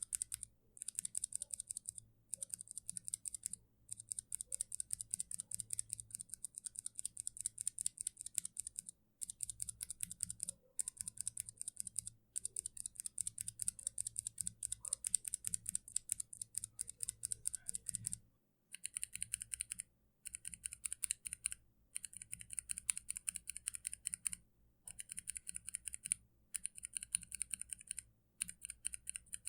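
Typing on a mechanical keyboard fitted with Kailh switches: rapid runs of key clicks in bursts of a second or two, with short pauses between. About two-thirds of the way in the keystrokes turn brighter and sharper, as if another switch type is being typed on.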